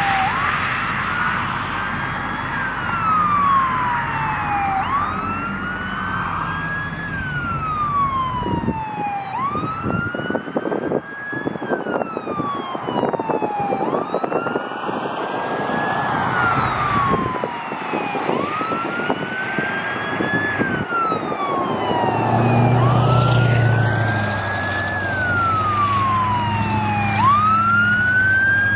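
Emergency-vehicle siren on fire-rescue apparatus, wailing steadily: a tone that climbs quickly and then falls slowly, about every four seconds. A low engine hum grows in near the end as the apparatus comes closer.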